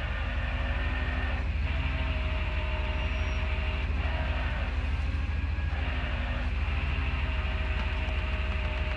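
Tow truck's engine running with a steady low rumble, under a whining winch whose pitch shifts in steps every second or two as it drags a car out of a ditch.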